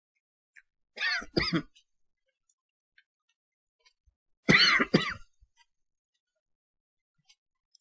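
A person clearing their throat with short coughs, twice: once about a second in, and again, louder, about four and a half seconds in.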